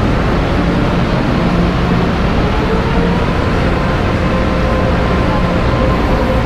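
Taiwan Railway electric commuter train pulling out along the platform: a steady, loud rumble of wheels and running gear, with a faint motor whine that comes in about two seconds in, rises a little and then holds.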